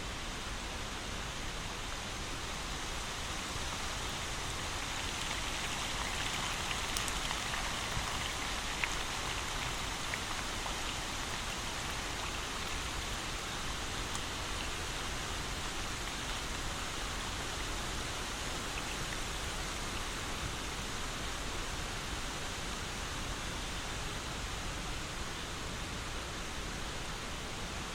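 Steady rain falling, an even hiss of many drops, swelling slightly a few seconds in, with a few single drops ticking out briefly.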